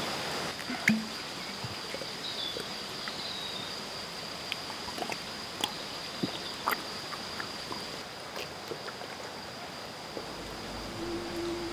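Woodland ambience: a steady hiss under a constant high-pitched thin tone, with scattered small clicks and knocks and a faint chirp a couple of seconds in. A low, pulsing musical note comes in near the end.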